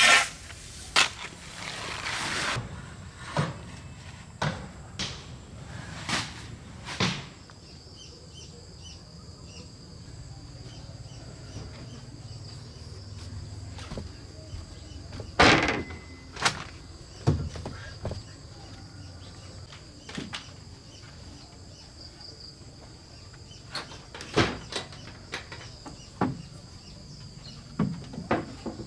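Scattered sharp knocks and clicks, a dozen or so at irregular intervals, the loudest about halfway through, over a steady high-pitched insect drone.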